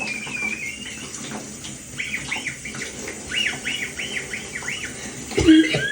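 Wheezy breathing: runs of short, high whistling squeaks, about three a second, over the steady hiss of running shower water, then a cough near the end.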